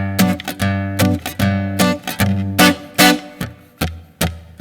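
Acoustic guitar strummed in a steady rhythm, chords ringing between strokes, as an instrumental passage between sung lines.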